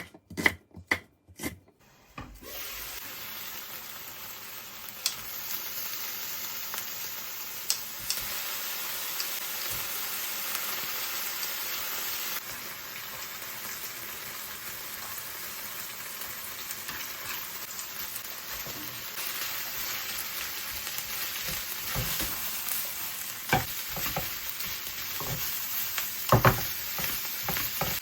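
Chicken thighs sizzling in a hot frying pan: a steady frying hiss, with a few sharp knocks at the start and occasional taps of a utensil against the pan.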